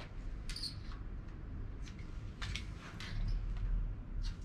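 A few light clicks and scrapes, with one short high squeak about half a second in, as a metal table saw top and a screwdriver are handled on a wooden board. A steady low hum runs underneath.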